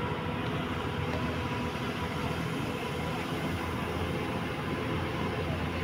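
Steady engine drone and road noise heard from inside a passenger vehicle climbing a hill road.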